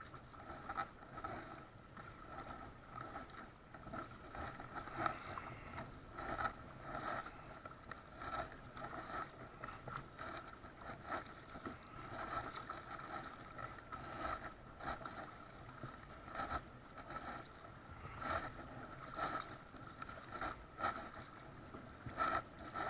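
Kayak paddle dipping and splashing into the water in repeated strokes, roughly once a second, with water sloshing against the plastic hull of a sit-on-top kayak.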